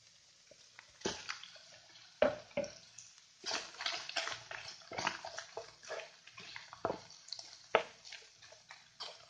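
Wooden spatula scraping and knocking against a frying pan in quick, irregular strokes as cooked rice is stirred and broken up into tuna flakes. It is quiet for about the first second.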